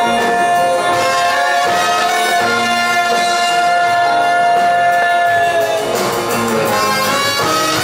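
Live band music: a trumpet holds one long note over guitar and upright bass, the note dipping slightly and ending about six seconds in.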